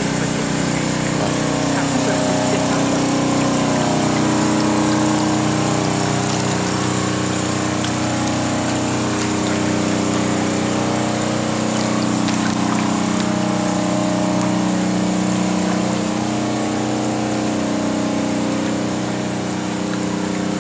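Pump motor running steadily, a constant mechanical drone whose pitch wavers slowly, typical of pumping out floodwater.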